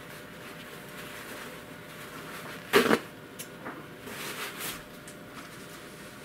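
A paper towel is torn off the roll with a sudden short double rip about three seconds in, followed by a few light clicks and softer paper rustling.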